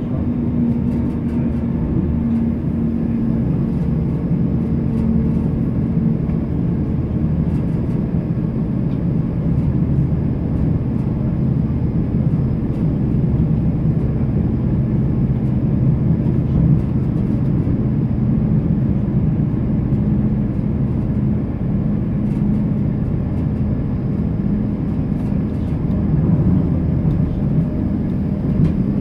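Model train running along the track, heard from on board the camera car: a steady drone of the small electric motor and wheels on the rails, with a faint held hum and occasional light clicks.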